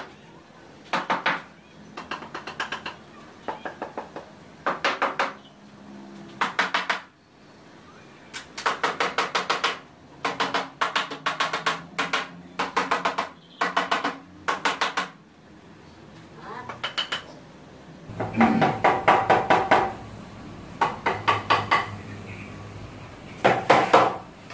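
A hammer tapping on the wooden tabletop of a work table, in short bursts of quick strikes with brief pauses between them. The strikes grow louder and denser after about two-thirds of the way through, with a slight ringing.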